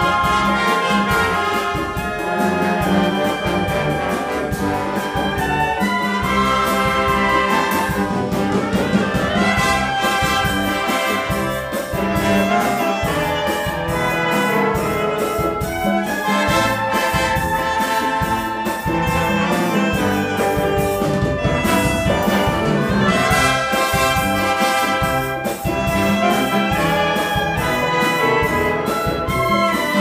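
A symphonic wind band playing live: clarinets and brass, trumpets and trombones to the fore, carry a medley's tune over a steady beat.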